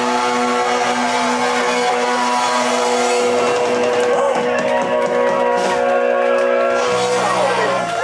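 Live punk rock band playing loud, with electric guitars, drums and a male singer. Long steady notes are held through, and the low notes stop shortly before the end.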